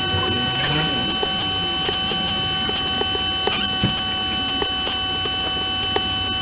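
Steady electrical whine of several high tones over a hiss, with scattered sharp clicks.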